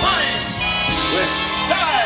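Show music playing over loudspeakers, continuous and full, with notes sliding in pitch.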